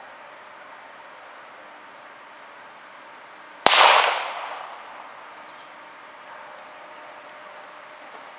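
A single shot from a Ruger Mark III .22 LR pistol about three and a half seconds in: a sharp crack followed by an echo that fades over about a second. Faint bird chirps in the background.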